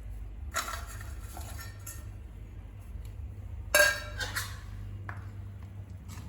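Clinking and clattering of a pot and utensils as pieces of broken jaggery are tipped into the pot of cooking wheat. It comes in a few bursts, the loudest about four seconds in.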